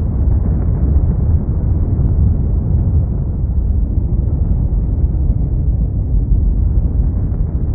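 A loud, steady deep rumble with no pitch and no breaks, like a rumbling dramatic sound effect.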